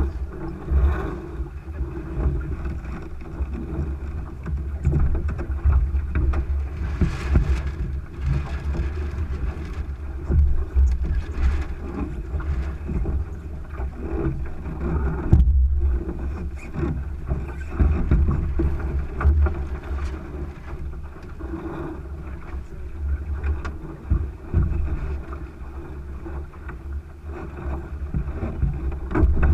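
Wind buffeting the microphone and water rushing along the hull of a Thistle sailing dinghy under sail, with scattered short knocks and rattles from the boat. The sound drops out for a moment about halfway through.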